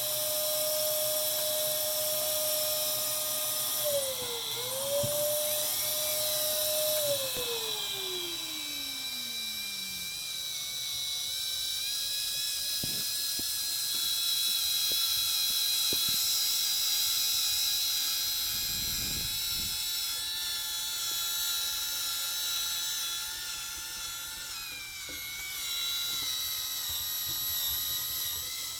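Power drill/driver spinning a dryer-vent cleaning brush on flexible rods inside the duct to scrape lint off the walls: a steady motor whine that dips briefly about 4 s in, then slides down in pitch as the motor slows. A higher whine with a wavering pitch carries on after that.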